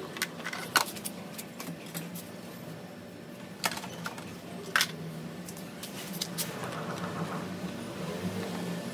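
Scattered sharp clicks and knocks of a screwdriver and hands working on a scooter's plastic body panels, the loudest about a second in and again near the middle, over a steady low hum.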